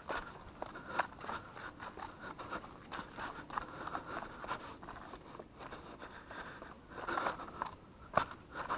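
A runner's quick footsteps going down concrete steps and a dirt trail, a string of irregular scuffs and crunches underfoot, with a louder cluster of steps near the end.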